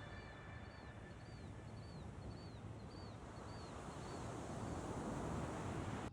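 Steady outdoor rushing noise, swelling slightly near the end, with a series of short high chirps about twice a second that stop about four seconds in.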